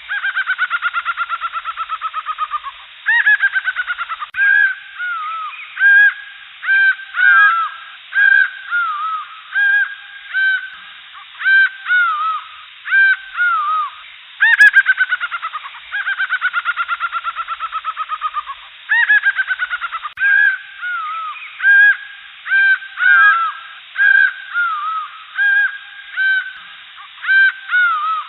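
Loud jungle bird calls: long, rapid stuttering series that fall in pitch, followed by strings of short arched calling notes. The same sequence starts over about halfway through.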